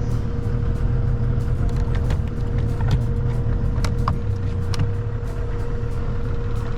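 Boat's outboard motor running steadily at idle, a low even rumble with a constant hum over it, and a few light clicks.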